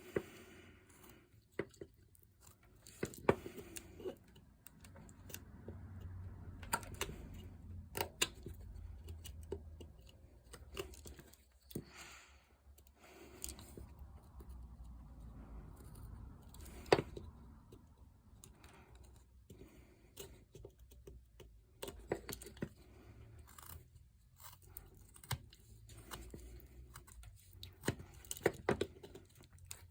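Swiss Army knife blade slicing and shaving basswood: soft scraping cuts broken by scattered sharp clicks and taps as chips are cut off.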